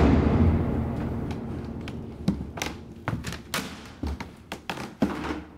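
A wooden door slammed shut with a loud bang, its low boom dying away over a couple of seconds. Irregular light taps and knocks follow in the second half.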